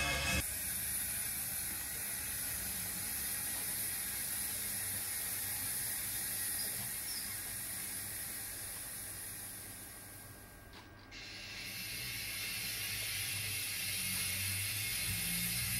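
0 gauge (7mm-scale) model steam locomotive running along the layout's track, giving a mechanical whirring with a clicking rattle from its motor, gears and wheels, over a steady high hiss. The sound dips quieter about two-thirds of the way through, then builds again near the end.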